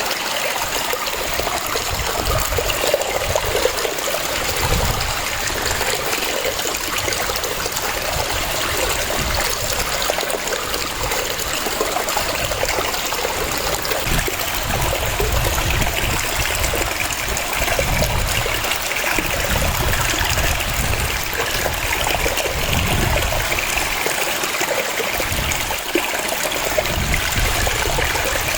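Waterfall: a steady rush of falling and splashing water, with an uneven low rumble underneath.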